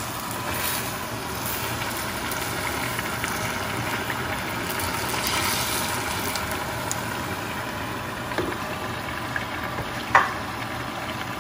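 Dough fritters deep-frying in a pot of hot oil: a steady bubbling sizzle. A short knock comes near the end as a fritter is lifted out with a metal skimmer.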